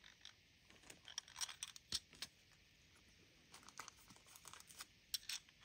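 Faint scattered clicks and light crinkling from handling small plastic zip bags of beads and a plastic bead tray, in two short bursts.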